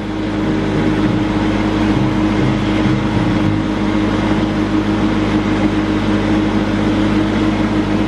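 Diesel generator set running steadily: a constant engine drone with a fixed hum.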